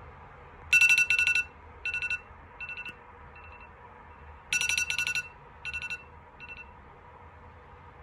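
Smartphone alarm ringing: clusters of electronic beeps, loud at first and then fading, heard in two rounds, stopping a little past halfway through.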